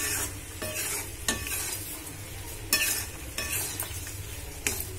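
A spoon stirring boiled raw-mango pieces in bubbling jaggery syrup in a metal kadai, scraping against the pan about six times. The syrup sizzles steadily underneath as the water from the mango cooks off.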